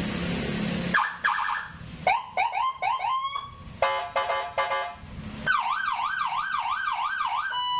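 Custom five-tone police-escort motorcycle siren, a 45 W module driving a 15 W speaker, stepping through its tones. About a second in it starts with a fast warble, then a string of quick rising chirps, then a rapid stepped pulsing tone, then a fast up-and-down wail about four times a second, and near the end a single steady tone.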